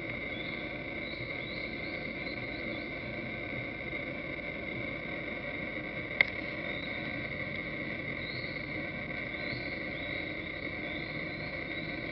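Steady high-pitched insect drone with faint short chirps over it, broken once about six seconds in by a single sharp click.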